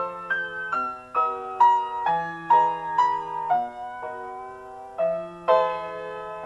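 Keyboard music: a slow melody of held notes, changing about twice a second over low bass notes, lingering on one chord for over a second near the middle.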